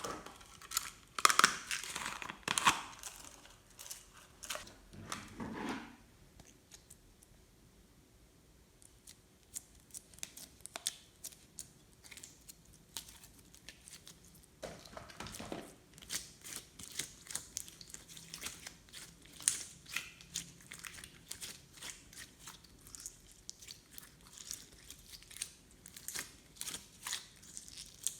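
Glossy slime being worked by hand, squished and stretched: a few longer squelching strokes near the start, then a long run of sticky crackling and popping clicks.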